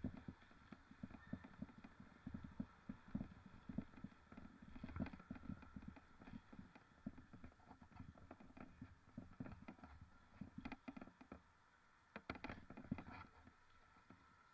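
Faint, muffled, irregular knocking and clattering, several small knocks a second, with a denser cluster near the end.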